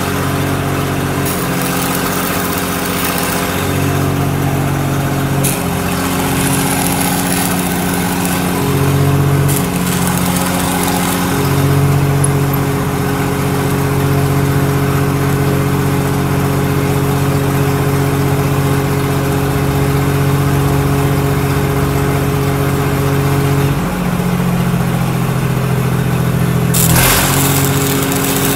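Stick arc welding: a welding machine runs with a steady hum that shifts in pitch and strength several times, under the hiss and crackle of the arc. There is a brief louder burst near the end.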